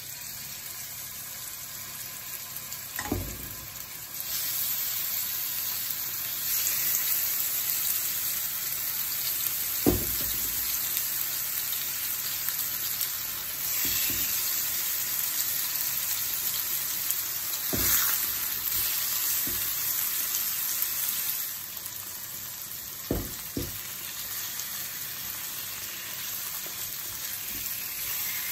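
Chicken breast pieces sizzling as they fry in hot oil in a nonstick frying pan. The sizzle grows louder as more pieces go in, and a few knocks against the pan stand out above it.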